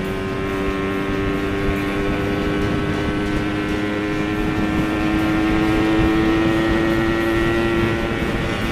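Yamaha RX-King's two-stroke single-cylinder engine running at a steady cruise under the rider, with wind and road rush. The engine note holds steady, sags slightly, then shifts a little lower near the end.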